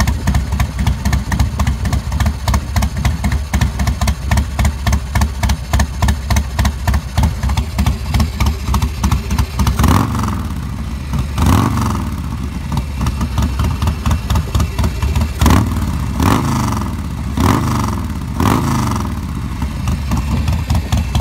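Carbureted 111-cubic-inch (1,820 cc) S&S V-twin of a custom chopper, running through a 2-into-1 exhaust. It idles with a steady, pulsing beat, then, about halfway in, the throttle is blipped about six times, each rev rising and falling back to idle. The engine runs cleanly and evenly: a healthy engine.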